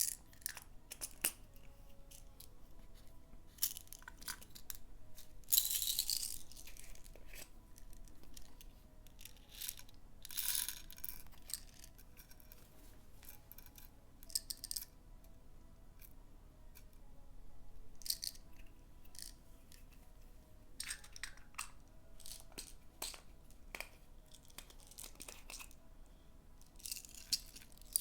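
Slime being worked by hand while pigment is mixed in: irregular sticky clicks and crackling pops, with longer, louder squelching bursts about six seconds in, around ten seconds, and at the very end.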